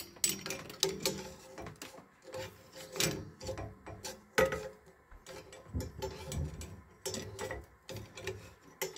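A metal screwdriver scraping and ticking inside the open end of a copper water pipe, working loose packed sediment and lime scale that clogged the hot-water line, with small bits dropping into a glass jar. The scrapes and clicks come irregularly, in short bursts of a second or so.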